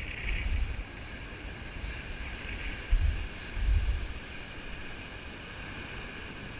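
Wind buffeting the microphone in gusts, strongest about three to four seconds in, over the steady wash of surf on a shingle beach.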